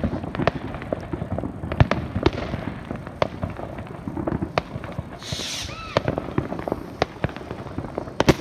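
Fireworks going off all around: many irregular bangs and cracks, several a second, overlapping. About five seconds in comes a brief hissing burst with a short gliding whistle.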